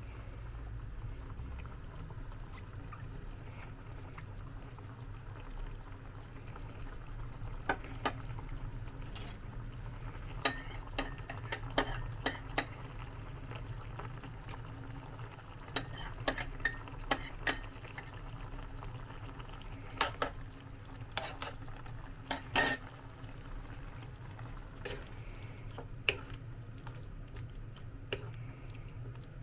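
A cooking utensil stirring chicken in tomato sauce in a pot, with scattered sharp clinks of the utensil against the pot in short clusters; one louder clank about three quarters of the way through. A steady low hum runs underneath.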